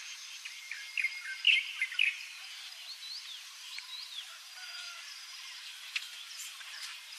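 Light-vented bulbul chirping and whistling in short, quick, curved notes, loudest in a burst about one to two seconds in, over a steady background hiss.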